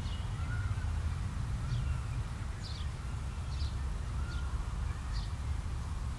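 Small birds chirping, short high downward chirps about once a second with a few lower whistled notes, over a steady low rumble.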